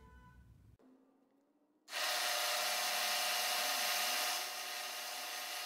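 End mill on a milling machine cutting a small flat into a metal casting: a steady hissing cutting noise with a steady whine in it. It starts suddenly about two seconds in and eases slightly a little past halfway.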